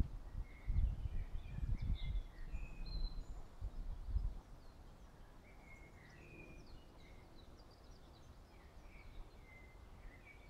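Small birds chirping in short high notes, scattered through the whole stretch. Over the first four seconds or so, low gusty rumbles of wind buffeting the microphone are the loudest sound, then they die down.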